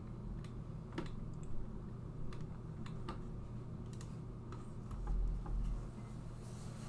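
Irregular sharp clicks of a computer mouse and keyboard at the desk, over a steady low hum, with a brief low thump about five seconds in.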